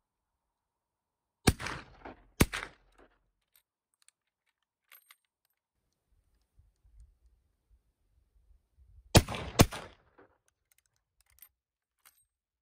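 Two 1873 Springfield trapdoor carbines in .45-70 fired: two shots about a second apart, then after about seven seconds two more about half a second apart, each with a short echoing tail. Faint clicks of the single-shot breechblocks being opened and reloaded come between and after the pairs.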